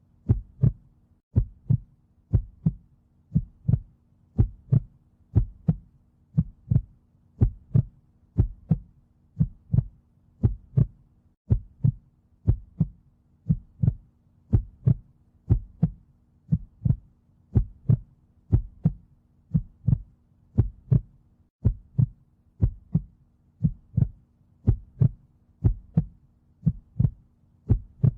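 Heartbeat, a steady lub-dub double beat repeating a little faster than once a second, over a faint low hum.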